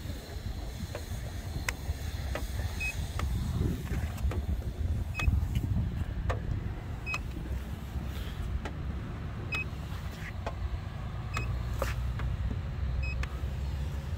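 Handheld paint thickness gauge giving a short high beep each time it is pressed to the car's body panels: six beeps about two seconds apart, over a steady low rumble with a few faint clicks.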